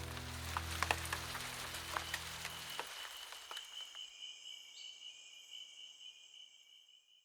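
A song's outro fading out: the sustained low chord and scattered light ticks die away about three seconds in. A thin, high, steady trill, like crickets, is left and fades out near the end.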